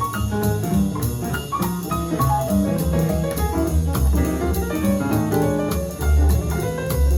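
Jazz piano trio with acoustic piano, double bass and drum kit, playing through Klipsch R-40PM powered bookshelf speakers. A walking bass line runs under piano phrases, with steady cymbal strokes keeping time.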